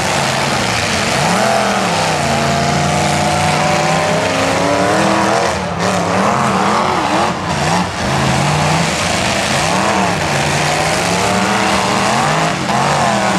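Demolition derby truck engines revving hard, their pitch rising and falling again and again as the trucks push against each other, over a steady roar of noise.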